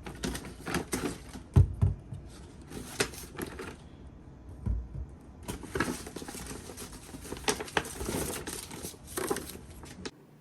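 Irregular handling noise: rustling, light clicks and taps, with two dull thumps, the first about a second and a half in and the second near five seconds.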